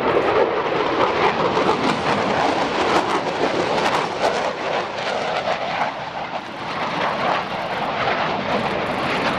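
Lockheed Martin F-22 Raptor's twin Pratt & Whitney F119 turbofans in a hard banking pass: loud, steady jet noise with a ragged crackle, easing slightly about two-thirds of the way through and building again.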